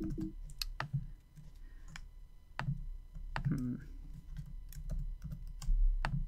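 Scattered, irregular clicks and taps of a computer keyboard and mouse while text settings are edited.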